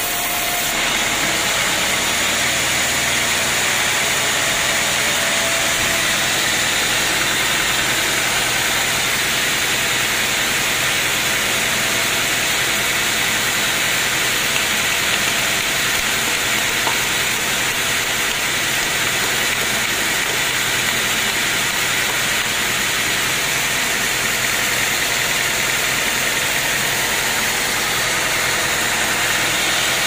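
A band sawmill running: a steady, even mechanical hiss and hum of the blade and its drive, with no pauses or changes.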